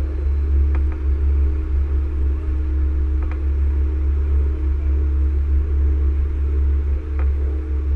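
Steady low rumble of a heavy-haul truck and its trailer rolling slowly, picked up by a camera mounted on the rig, with a steady hum and a few light clicks about one, three and seven seconds in.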